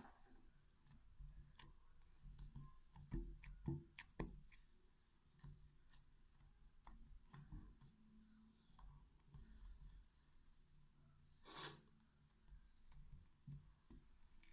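Faint, quiet sticky clicks and smacks of hands kneading and pulling a soft flour-and-water dough, with a few soft thumps about three to four seconds in and a brief rustle near the end.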